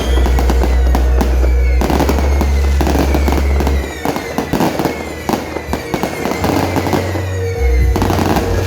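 Fireworks going off: dense crackling and popping with falling whistles, heaviest about two to four seconds in, over loud music with a heavy bass.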